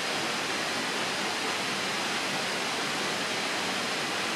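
Waterfall rushing steadily: an even, unbroken wash of falling water.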